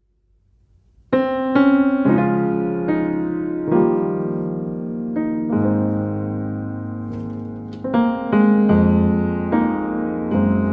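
Background piano music: after about a second of near silence, slow sustained piano chords begin and change every second or so.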